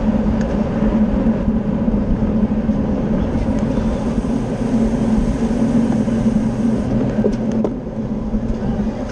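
Steady rush of wind and road-bike noise at race speed, a loud continuous hum of tyres and drivetrain with wind over the microphone, and a few short clicks about seven seconds in.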